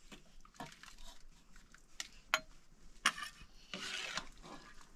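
Metal ladle scraping and knocking against a cooking pot and steel bowls as stew is served out, with a few sharp clinks about two seconds in and a short scrape near the end.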